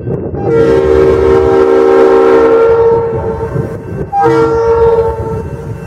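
Diesel locomotive air horn sounding a chord of several tones: a long blast of about two and a half seconds, then a shorter blast of about a second, over the low rumble of the train.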